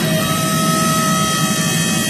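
Hydraulic forging press running as its dies squeeze a red-hot steel axe-head blank: a loud, steady mechanical drone with a thin whine over it, and no hammer blows.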